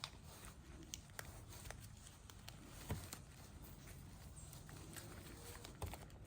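Faint handling noise: scattered light clicks and rustles of hands working a gel pad into a motorcycle seat, with a slightly sharper tap about three seconds in and another near the end.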